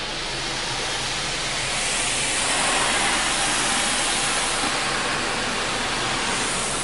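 Car wash air-cannon dryer blowers running, heard from inside the car as a loud rushing hiss that builds over the first couple of seconds and then holds steady, with a low hum underneath.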